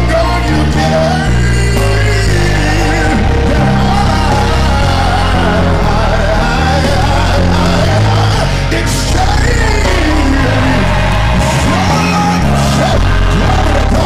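Gospel choir singing with a live band, an electric bass playing underneath the voices.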